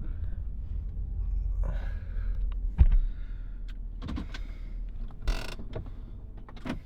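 Handling noise from the recording device: a low rumble with scattered clicks and knocks, the loudest about three seconds in, and a short rush of rustling a little past five seconds.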